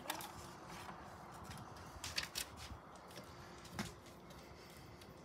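Faint handling sounds of a label being put onto a plastic sauce bottle: a few light, scattered clicks and taps, the sharpest about two and four seconds in, over a low steady hiss.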